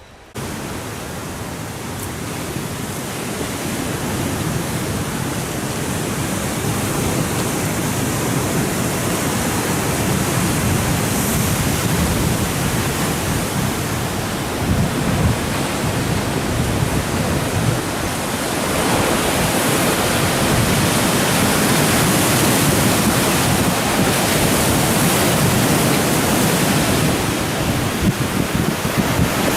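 Ocean surf rushing steadily, growing louder over the first several seconds and then holding.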